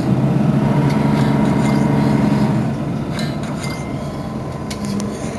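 Mercedes-Benz Citaro facelift city bus engine running steadily at a constant pitch, with light clinks and rattles. It drops slightly in level about halfway through.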